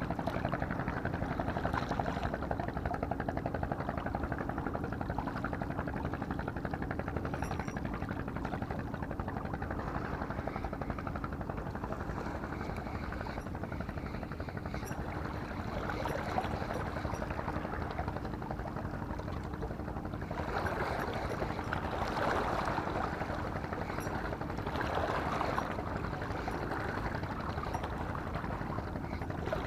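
Steady wash of sea water with a low, steady hum underneath, swelling a little about two-thirds of the way through.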